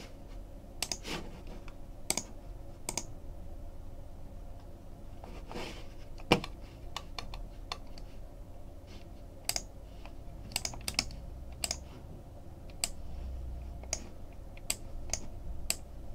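Computer keyboard and mouse clicking in scattered single keystrokes and short runs, with one louder click about six seconds in.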